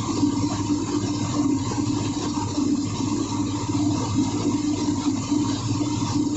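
Ship's engine-room machinery running steadily, a constant hum with a low drone and no breaks.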